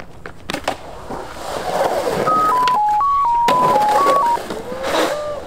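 A couple of sharp skateboard clacks, then a loud hiss with a quick run of about nine short electronic beeps jumping between pitches, like a dialing-tone sound effect over a colour-bar title card.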